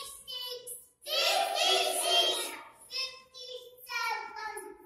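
A young child singing in a high voice, in short phrases broken by brief pauses.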